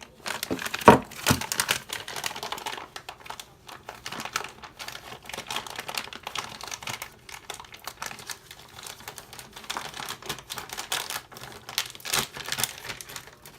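Clicking, rattling and crinkling as a machined-metal RC crawler front axle is handled and turned over in its plastic packaging, with a sharper knock about a second in.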